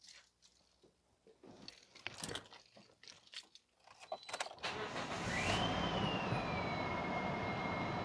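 A few clicks and knocks, then the 2010 Toyota Corolla's 1.8-litre four-cylinder engine cranks and starts about four and a half seconds in and settles into a steady idle. Just after it catches, a high whine rises, then eases down and holds steady.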